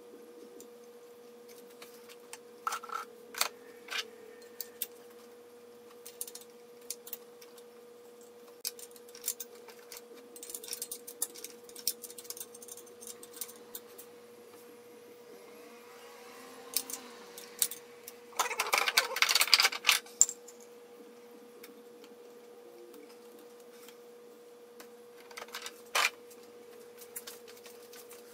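Scattered metallic clicks and clinks of hand tools and engine parts being handled, with a denser burst of rattling about two-thirds of the way through, over a steady hum.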